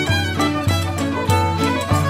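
Old-time string band music: a fiddle leads a lively hornpipe tune over a steady beat.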